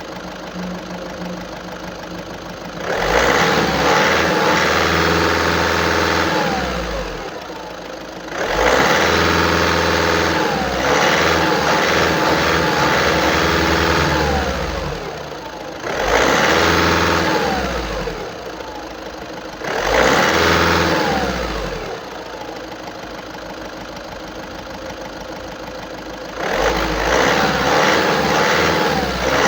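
2013 VW Passat B7's 1.6-litre TDI four-cylinder diesel engine idling and revved up five times, each rev held for a few seconds before falling back to idle. The uploader takes the engine noise for the sign of a clogged diesel particulate filter (DPF).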